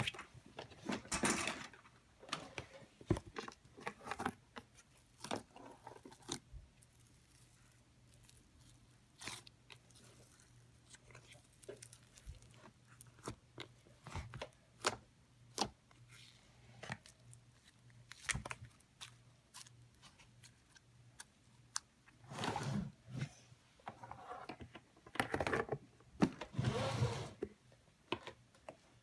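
Slime being squeezed and poked by hand: a run of sharp sticky clicks and pops, with longer squishing stretches about two-thirds of the way through and again near the end.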